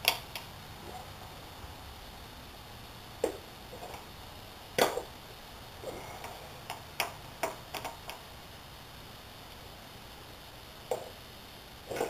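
Irregular sharp clinks and taps of a screwdriver and small parts against a motorcycle's chrome top clamp, about a dozen in all, the loudest near the start and about five seconds in, with a quick cluster of taps around seven to eight seconds.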